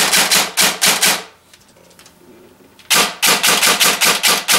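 ICS CXP M.A.R.S. airsoft electric carbine firing two rapid bursts of sharp mechanical clacks, about six a second, its electric blowback bolt cycling with each shot. The first burst stops about a second in and the second starts about three seconds in.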